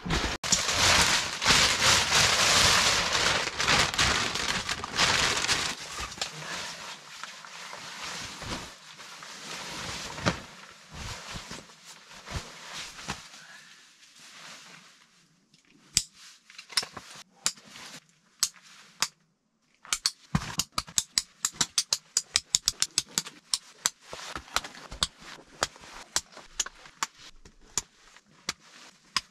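Quilted insulated inner tent and nylon tent fabric rustling and swishing as it is handled and hung, loudest at first and then fading. In the second half come many sharp clicks, at about four a second for long stretches.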